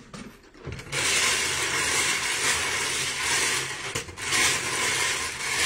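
Plastic bingo balls clattering and tumbling inside a hand-cranked wire bingo cage as it is spun, starting about a second in, with a brief lull near four seconds.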